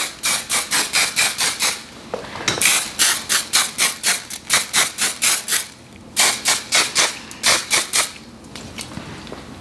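Aerosol hairspray (Pantene Airspray) sprayed onto hair in three runs of short, quick hissing bursts, about four a second, with brief pauses between runs; near the end it stops.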